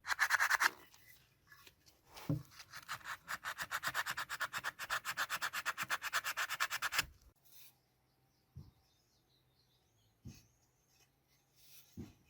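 Hand rubbing or sanding with an abrasive: a short burst at the start, then a few seconds of fast, even back-and-forth strokes, about eight a second, that stop suddenly.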